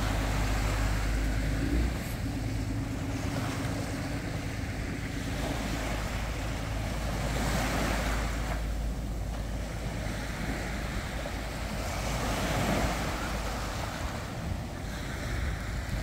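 Small sea waves breaking and washing up onto a sandy beach, the surf swelling every few seconds, with wind rumbling on the microphone.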